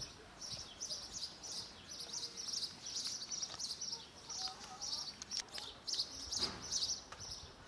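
Small birds chirping outdoors: a rapid, continuous run of short, high-pitched chirps.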